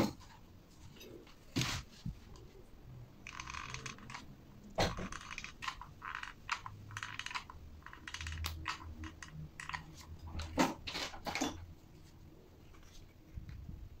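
Handling noises from small parts being worked by hand: scattered clicks and knocks of wood and metal pieces, with two short stretches of scratching in the first few seconds and a quick run of clicks near the end.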